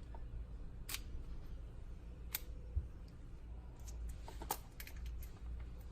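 A few sharp clicks and taps, with a quick cluster about two thirds of the way in, over a low steady hum.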